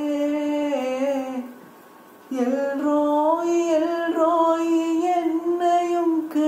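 A man singing a Tamil Christian gospel song unaccompanied, holding long notes: the first trails off about a second and a half in, and after a short breath he holds a second long note with a slight waver.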